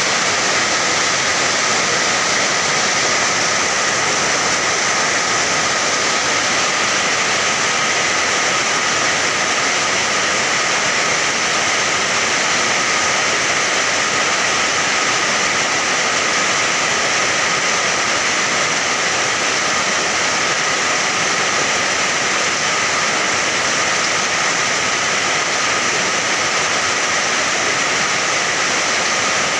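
Steady rain, an even, unbroken hiss that holds the same level throughout.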